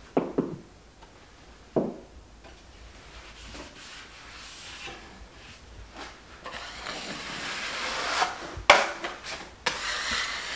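A drywall taping knife scraping joint compound along a paper-faced corner bead, embedding it in the mud; the scraping swells and is loudest over the last few seconds. A few sharp knocks in the first two seconds, and two sharp clacks near the end.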